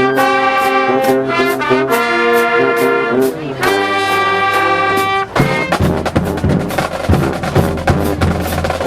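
High school marching band playing in the stands: the brass section holds full chords over a steady drum beat, then about five seconds in the horns cut off and the drumline carries on alone.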